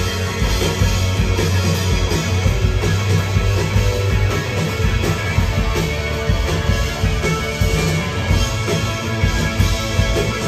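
Live rock band playing loudly on electric guitars, bass and drums.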